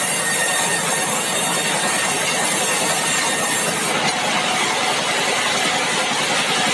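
Sawmill machinery running steadily, with a loud, even mechanical noise and hiss as red meranti logs are milled.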